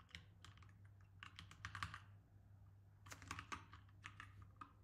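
Faint clicking of computer keyboard keys, typed in short irregular runs of quick keystrokes as text is edited, over a faint steady low hum.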